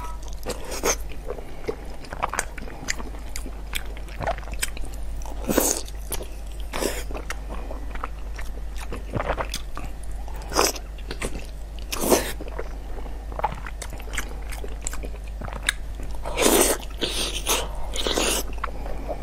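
Close-miked eating: a person biting and chewing food, with irregular wet crunches and smacks, a few louder bites about five and a half seconds in, around twelve seconds and near the end.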